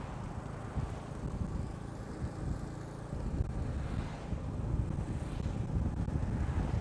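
Wind buffeting the microphone on a moving motorcycle taxi: a heavy, irregular low rumble with the ride and road traffic beneath it. It grows a little louder about three seconds in.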